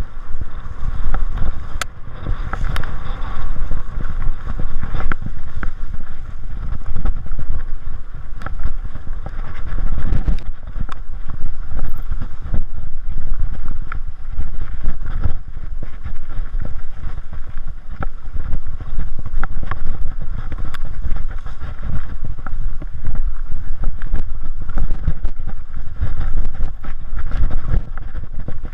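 Mountain bike descending a rough dirt trail at speed: wind rushing over the camera's microphone with a constant low rumble, and frequent knocks and rattles from the bike jolting over the ground.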